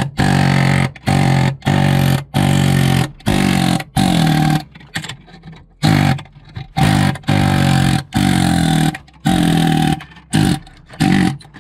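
Pneumatic air hammer (compressor air gun) firing in about a dozen short buzzing bursts as it chisels an ISA slot connector off a motherboard. The connector is hard going and takes a lot of force.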